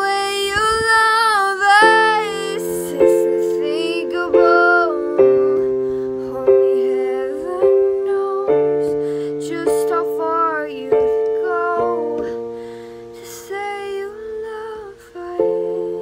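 A young woman singing long, drawn-out notes with vibrato over slow accompaniment chords. A new chord is struck about once a second and left to ring out. The voice comes and goes in phrases and drops out near the end while the chords carry on.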